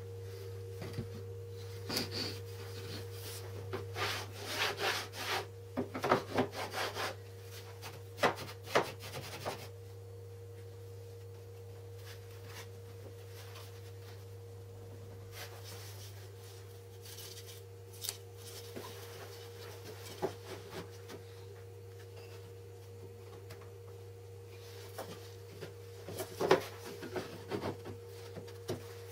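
Homemade wooden table saw side-pusher jig being handled and slid about on a hard surface: bursts of rubbing, knocks and clicks in the first ten seconds and again near the end. A steady low hum runs underneath.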